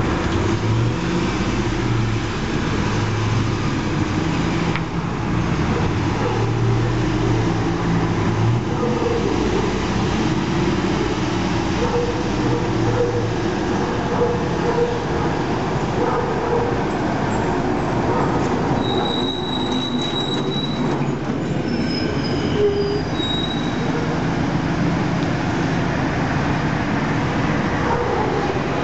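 Engine of a Ford F550 Super Duty fire truck running at idle, a steady rumble mixed with street traffic noise. A few short high squeaks come about two-thirds of the way in.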